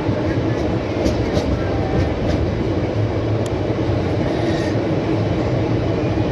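Indian passenger express train running along the track: a steady rumble with a few sharp clicks.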